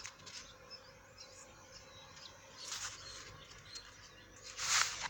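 Small birds chirping in the background, many short twittering calls, with two brief bursts of hiss-like noise, the louder one near the end.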